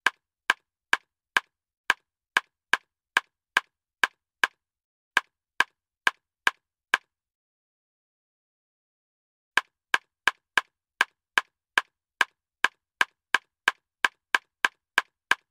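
Sharp tick sound effects, one tick per gill ventilation of a goldfish, at a little over two a second. They stop for a couple of seconds about halfway, then resume slightly faster, counting the fish's breathing in deionized water after tap water.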